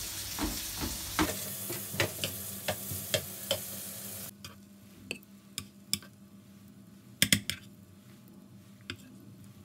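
Halved Brussels sprouts sizzling in olive oil and butter in a frying pan, with a utensil clicking against the pan as they are stirred. About four seconds in the sizzling stops abruptly, and a few light, scattered taps and clicks follow, a quick cluster of them past the middle.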